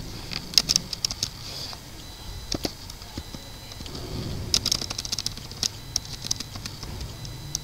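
Computer keyboard keys clicking as code is typed and deleted, in irregular single taps and short quick runs over a low steady hum.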